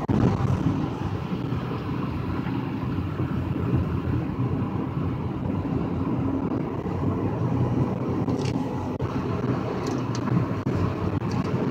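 Steady low rumble of a car's engine and cabin noise from inside the car, with a faint low hum.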